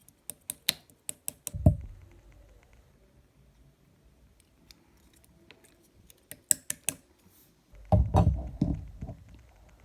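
Slime being handled: a run of sharp little clicks and pops, a soft low squish about a second and a half in, more pops around six to seven seconds, then several low squelching presses near the end.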